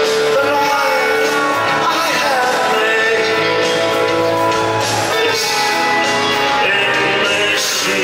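Live rock band playing, a male lead vocalist singing long, sliding melodic lines over guitar and drums, heard from the audience in a large hall.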